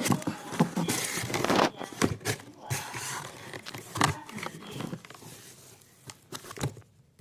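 Parcel packaging being crinkled and torn open, a rustling mixed with sharp clicks and handling knocks. It is busiest about a second in and dies down after about five seconds.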